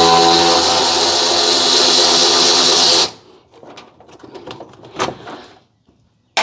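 Hand-held power tool spinning a socket steadily, backing out the bolts on the top of a radiator fan shroud. It stops abruptly about three seconds in, followed by a few faint knocks and a sharp click near the end.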